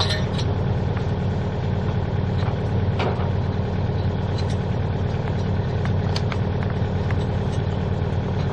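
An engine idling steadily nearby, a low even drone, with a few light clicks and knocks, about three and six seconds in, as the water meter and its fittings are handled.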